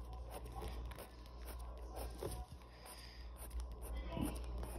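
Faint scratching of pencil strokes on paper, a series of short separate scrapes over a low steady hum.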